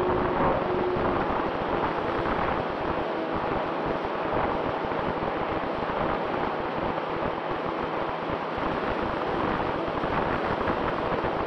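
Wind rushing over the onboard camera microphone of a twin electric-motor RC P-38 in flight, with the hum of its brushless motors and propellers mixed in. A steady motor tone fades out about a second in, leaving mostly the rush of air.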